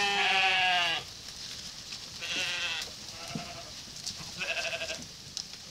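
Sheep in a flock bleating: a loud bleat about a second long at the start, then three more, the last short and quavering.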